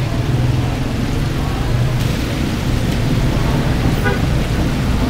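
Steady low rumble with a hiss over it, like roadside traffic, with a few faint clicks about four seconds in.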